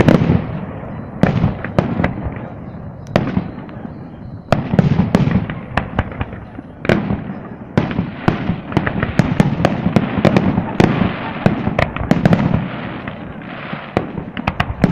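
Fireworks display: a continuous run of sharp bangs and crackling reports, with several heavier booms from aerial shells bursting. The reports come thickest in the second half.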